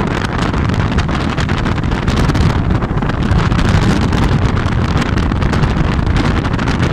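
Strong libeccio wind buffeting the microphone: a loud, continuous rumble of wind noise with rapid gusty flutter.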